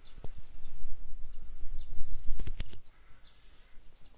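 Dunnock song, a rapid run of short high twittering notes, played through a television's soundbar. Under it, from about half a second to nearly three seconds in, a louder low rumble with a few sharp knocks.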